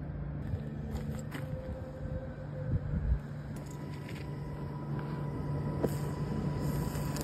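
Oxy-acetylene cutting torch on a track-cutting carriage, with a few knocks about three seconds in and then burning with a steady hiss over a steady low hum.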